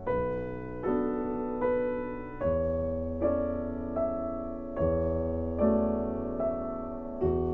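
Background music: slow, gentle piano chords, a new chord struck about every 0.8 seconds and left to ring and fade.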